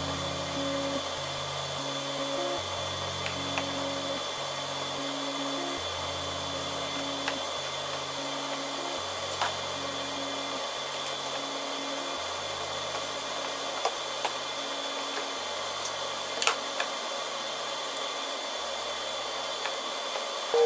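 Background music with a stepping bass line, over a steady faint high whine and hiss, with a few light clicks.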